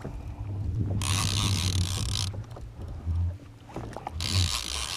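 Fishing reel and line working against a hooked mahi-mahi: two zipping, hissing bursts, each a little over a second long, over a steady low rumble.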